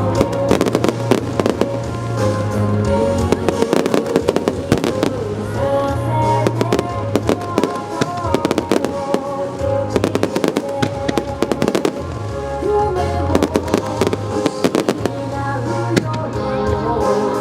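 Fireworks going off in a rapid, continuous barrage of bangs and crackles, over loud show music with a steady bass line.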